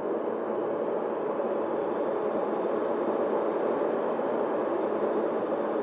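Steady rushing airflow noise on the onboard camera of an E-flite Opterra flying wing in flight, with no distinct motor pitch.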